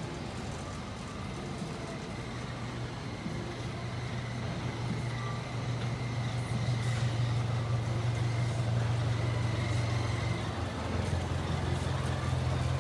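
Miniature railway locomotive's engine running with a steady low hum, growing louder about five seconds in.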